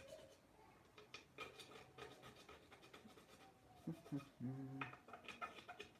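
Plastic tool scraping white residue off the inside of a WWI German M16 steel helmet: faint, irregular scratching and rubbing strokes. A brief low hum of a voice about four seconds in.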